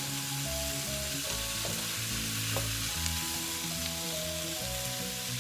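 Shrimp, garlic, onions and green onions sizzling steadily in hot oil in a wok as they are stir-fried, with a few light knocks of the utensil.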